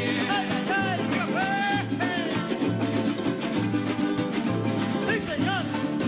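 Live Venezuelan folk music: cuatros strummed in a steady rhythm over a drum beat, with a voice singing phrases in the first two seconds and again near the end.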